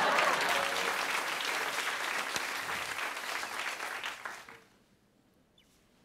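Studio audience applauding, dying away about four and a half seconds in.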